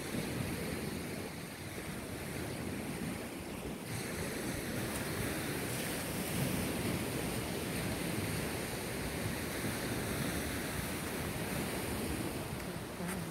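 Surf washing steadily on a sandy beach, with wind rumbling on the microphone.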